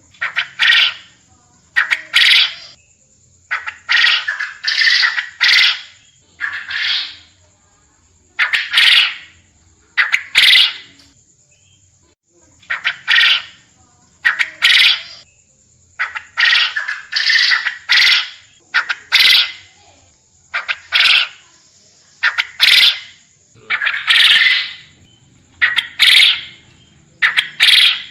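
Quail calling over and over: short calls about half a second long, singly or in quick runs of two or three, every second or two. A faint steady high whine runs underneath.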